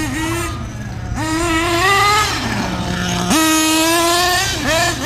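1/8-scale RC car's .28 nitro engine revving as it is driven: a high, rising whine that drops back to a lower idle about two and a half seconds in, snaps back up to full throttle about a second later, then falls away near the end with quick throttle blips.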